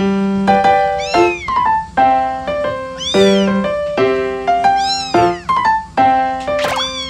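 Piano background music with a calico kitten's high meows over it, four times, each call rising and then falling in pitch.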